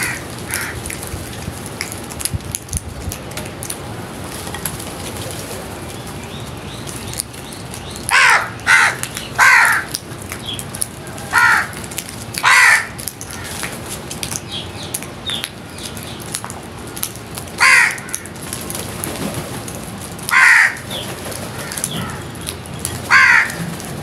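House crows cawing: about eight loud, harsh single caws, spaced a second or several seconds apart, starting about a third of the way in, over a background of light clicks.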